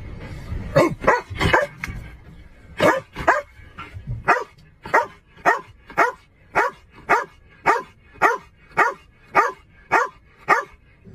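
Shepherd-type police dog barking: a few scattered barks, then from about four seconds in an even run of short barks at about two a second.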